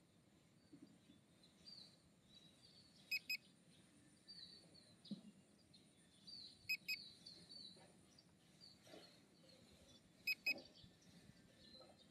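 Electronic warning beeps from the drone's controller sound in short double beeps, three pairs about three and a half seconds apart. Faint bird chirps are heard between them.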